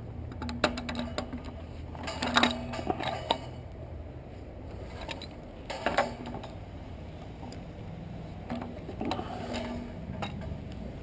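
Scattered metal clinks and knocks from parts of a gas water heater being worked loose and taken off by hand, over a steady low hum.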